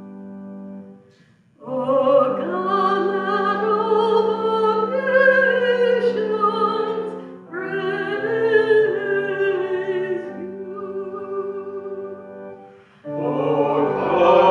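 A woman cantor singing the responsorial psalm with organ accompaniment. A held organ chord opens, then she sings two long phrases with vibrato over sustained chords, with a short breath between them. A new phrase begins near the end.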